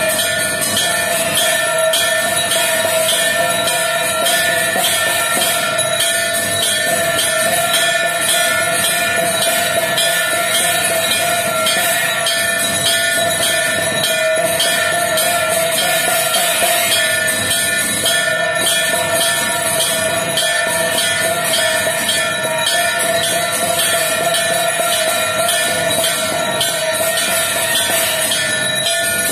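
Temple bells and drum sounding continuously, a rapid, even clanging with steady ringing tones.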